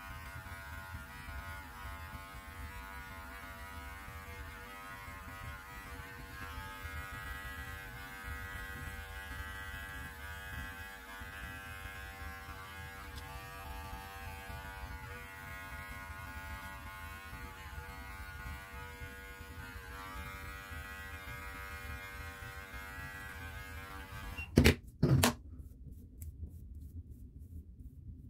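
Electric beard clippers running with a steady motor hum. Near the end come two sharp knocks, and the hum then stops.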